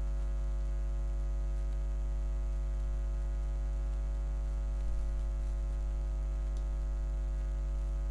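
Steady electrical mains hum: a low, even hum with a ladder of higher overtones that does not change.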